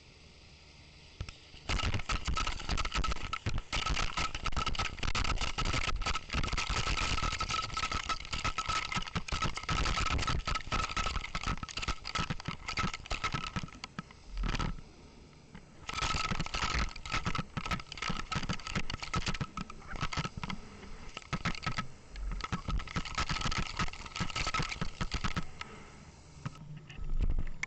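Rapid, dense mechanical clicking and rattling over a steady high whine. It starts about two seconds in, pauses briefly about halfway, then resumes and stops near the end.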